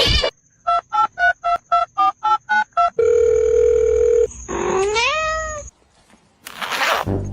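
Phone keypad dialing beeps, about nine quick two-tone presses, followed by a steady phone tone lasting about a second. A cat then gives one meow rising in pitch. Near the end there is a short burst of noise.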